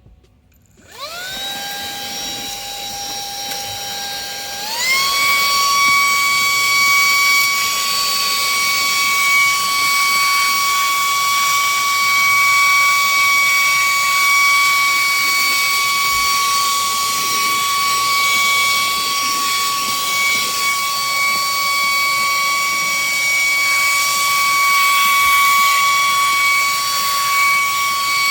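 Wyze cordless handheld vacuum switched on and running: a high motor whine that rises as it spins up, steps up to a higher pitch about five seconds in, holds steady while vacuuming, and winds down as it is switched off at the end.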